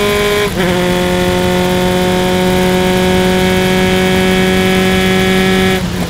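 Single-seater race car engine at high revs under full throttle, heard from onboard. It takes a quick upshift about half a second in, with a short dip and a small drop in pitch. It then pulls at a near-steady high pitch until the throttle snaps shut just before the end.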